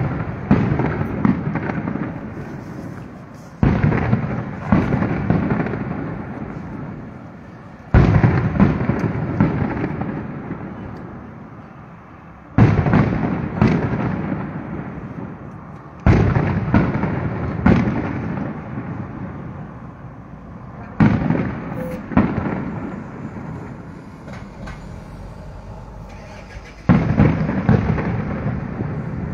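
Aerial fireworks shells bursting: a sharp bang every four to five seconds, with smaller bangs between, each followed by crackling and rumbling that dies away over several seconds.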